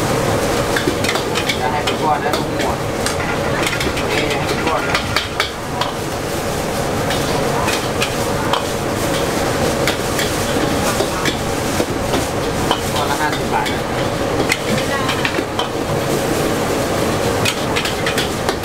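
Pad thai noodles sizzling in a large steel wok while a metal spatula scrapes and knocks against the pan, tossing them in frequent strokes.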